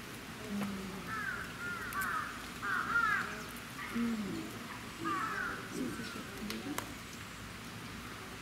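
Animal calls: four quick clusters of short, falling, harsh calls, a few at a time, with lower, shorter calls scattered in between.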